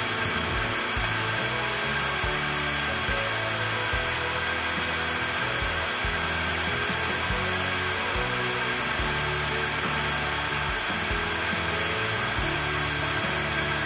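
HDT CDD405 12-volt cordless drill running steadily at full trigger with no load in gear 1, a constant whir at about 390 RPM at the chuck. Background music with a steady beat plays underneath.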